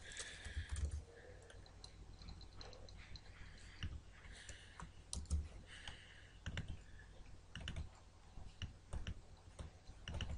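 Faint, irregular clicking of a computer mouse and keyboard.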